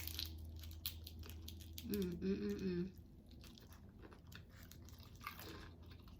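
Close-up eating sounds: a crunchy taco being bitten and chewed, with crackling crunches over the first two seconds. About two seconds in comes a brief hummed "mmm", then quieter chewing with a few light crunches.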